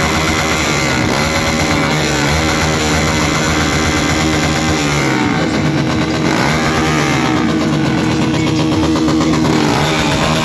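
Motorcycle engines revving hard, deep-toned, with the pitch rising and falling about halfway through.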